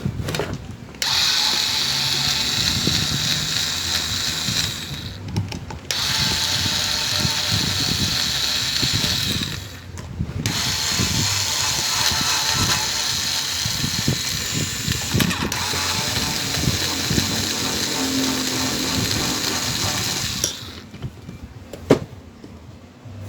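Handheld power drill-driver running in three long stretches of about four, four and ten seconds, each starting and stopping abruptly, while the fan motor's casing is being opened. A single sharp knock comes near the end.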